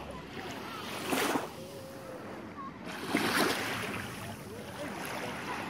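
Small sea waves lapping on a sandy shore: two short washes of surf about a second and three seconds in, over a steady wash of water, with faint distant voices.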